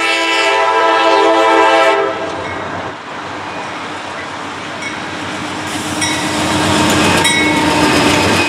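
Norfolk Southern GE Dash 9-44CW freight locomotive's air horn sounding a chord, which cuts off about two seconds in. Then the lead locomotives' diesel engines and wheels rumble past close by, with the noise growing louder toward the end.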